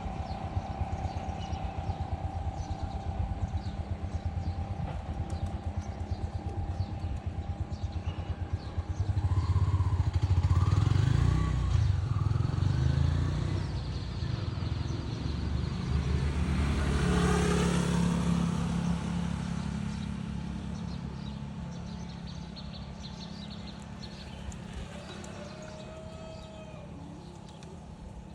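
A motor vehicle engine running, growing louder about a third of the way in and then fading slowly as it passes by, with faint chirps of birds.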